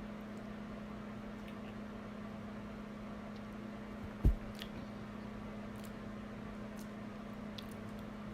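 A steady low hum with faint scattered ticks, and one short dull thump about four seconds in.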